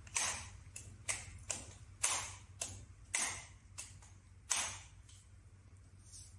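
Baby stroller's seat-recline mechanism clicking as it is worked by hand: about nine sharp clicks at uneven intervals, then they stop.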